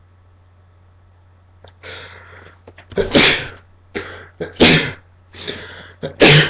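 A man sneezing three times in quick succession, each burst led by a noisy in-breath; the last one comes out more like a cough.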